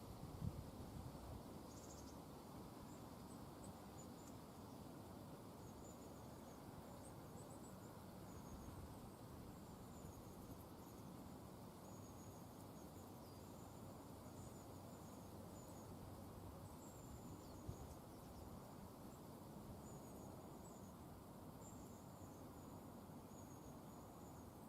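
Faint outdoor natural ambience: a low steady noise under thin, high, short chirps repeating irregularly.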